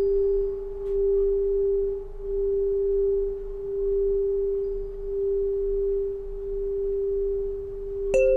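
Solfeggio tuning pipe ringing a single steady pure tone, apparently the 396 Hz 'Ut' pipe, swelling and fading slowly as it sounds. Just before the end a second pipe is struck with a sharp ping, adding a slightly higher tone alongside the first.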